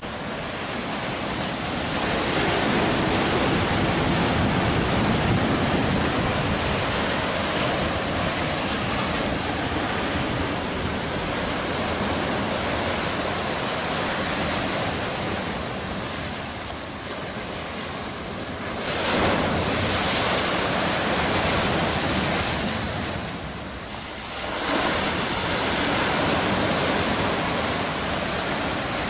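Sea surf breaking against shoreline rocks: a continuous rush of waves that swells and ebbs, with surges about 2, 19 and 25 seconds in and brief lulls between.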